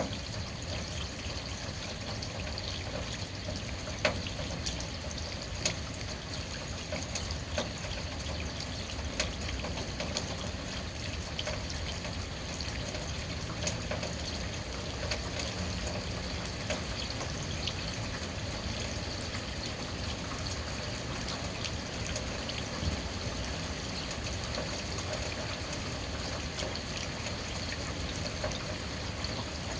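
Rainwater trickling steadily, with scattered sharper drips standing out now and then.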